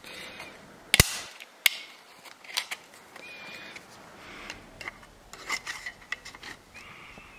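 Steel band-type piston ring compressor being fitted around a piston in an engine block's cylinder bore: sharp metal clicks, the two loudest about a second in and a moment later, then lighter clicks and rubbing as the band is handled.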